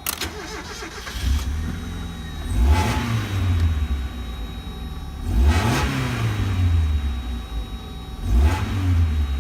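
Mazda Miata four-cylinder engine accelerating in several pulls, its pitch rising and falling back about every three seconds. It runs smoothly with no misfire now that the ignition wires have been replaced.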